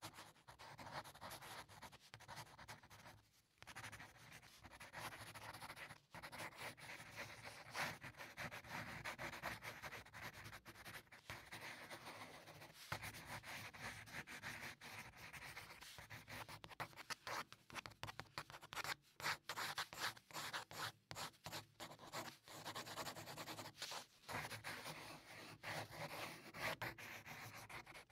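Pencil drawing on paper: graphite scratching and rubbing across the sheet in long strokes, with brief pauses a few seconds in and a run of short, quick strokes past the middle.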